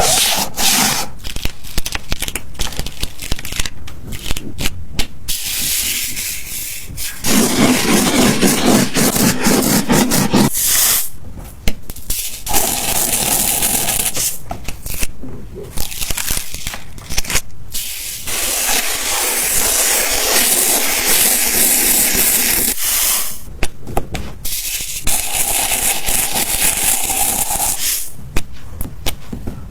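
Sand being sprinkled and rubbed across a sand-painting surface: a steady hissing rush of grains, broken again and again by short abrupt stops, with quick scratchy strokes in the first few seconds.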